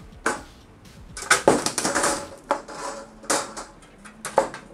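Metal clattering and knocks as parts of a mesh PC case are handled and set down: a handful of sharp knocks, with a busier clatter from about one to two seconds in.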